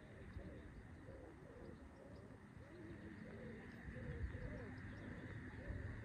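Pigeons or doves cooing, soft arched coos in a quick, overlapping run over a steady low rumble.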